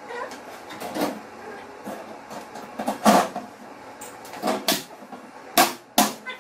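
Solid-wood kitchen cabinet being fitted: several sharp wooden knocks and bumps as its doors and panels are handled, the loudest about halfway through and two close together near the end.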